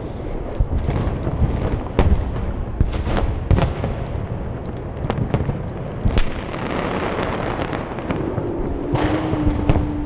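A tree burning in tall flames: a steady rush of fire full of dense crackling, with sharp loud pops and cracks at irregular intervals, several close together near the end.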